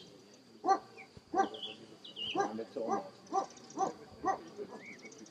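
German shepherd barking repeatedly, about two barks a second, starting shortly after the beginning.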